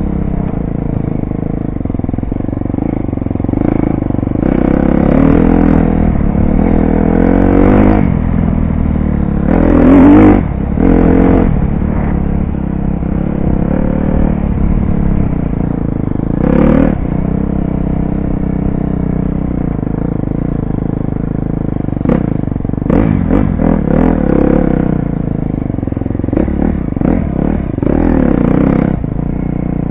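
KTM dirt bike engine running hard, its revs rising and falling again and again as the rider works the throttle, with knocks and rattles from the bike over bumps in the later part.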